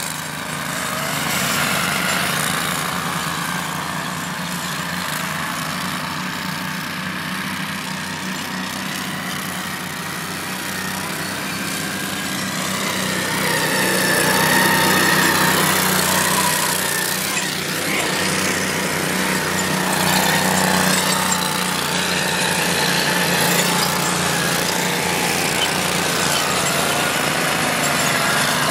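Small dune buggy engines running steadily. The sound swells as a buggy drives close by in the middle, and its pitch sweeps as it passes.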